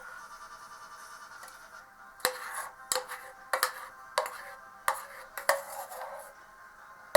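Background music: sustained tones, joined about two seconds in by a regular tapping beat of about three beats every two seconds.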